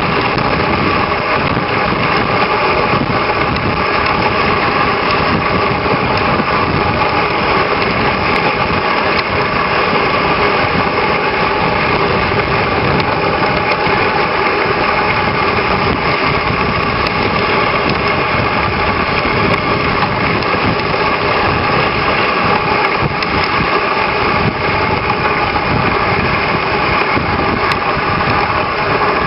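Dog sled moving over a packed snow trail: a steady, loud hiss and rattle of the runners on snow, unbroken throughout.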